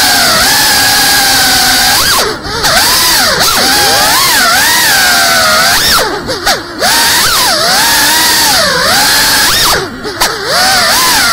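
FPV quadcopter's motors whining, the pitch swooping up and down as the throttle changes. The sound drops out briefly about two seconds in, again around six seconds, and near ten seconds, as the throttle is chopped while the quad rolls and flips.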